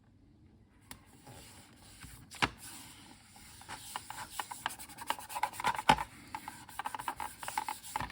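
Self-adhesive keyboard overlay being rubbed down onto a computer's keyboard: a scratchy rubbing with many small clicks and crackles, growing louder and busier about halfway through.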